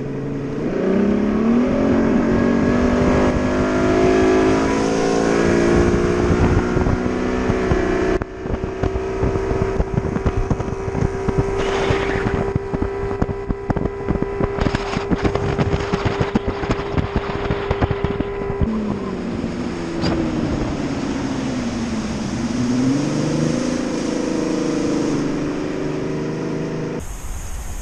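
Outboard motor on an aluminum bass boat pulling away, its pitch rising for several seconds, then running at a steady high speed under a rapid patter of small knocks and wind noise. About two thirds of the way through it throttles back with a falling pitch, picks up slightly again, then drops away near the end.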